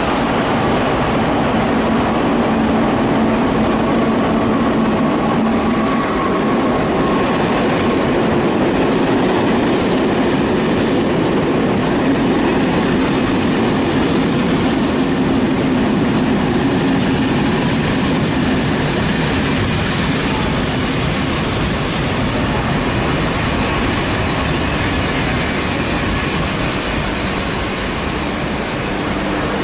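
SNCF Intercités passenger coaches rolling slowly into a covered station platform, with a steady loud rumble and wheel clatter and a high squeal at times as the train brakes. The sound carries under the concrete platform roof.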